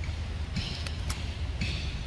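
A young macaque biting and chewing crunchy green fruit: a few crisp crunches and short bursts of high, hissy chewing noise over a steady low rumble.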